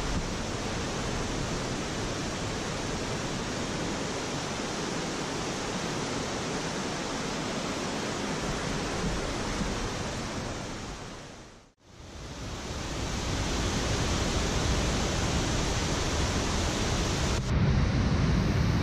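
Steady rush of a mountain creek's water tumbling over stones. It dips out briefly a little past the middle, comes back, and turns louder and deeper near the end.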